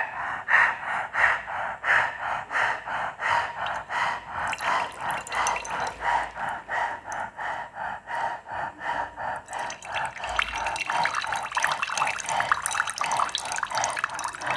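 Salt water from a neti cup running out through the nostril and dripping and splashing into a basin during a jala neti nasal rinse, over quick, even breathing through the open mouth at about three breaths a second. The dripping sets in about four seconds in and grows heavier near the end.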